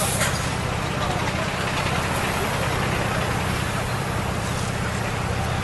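A heavy vehicle's engine idling steadily, a constant low drone under a haze of outdoor noise.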